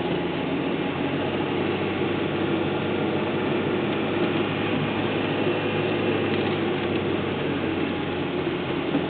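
Steady cabin sound of a 2004 Honda Civic Si hatchback cruising at about 30 mph: the 2.0-litre four-cylinder engine humming under tyre and road noise.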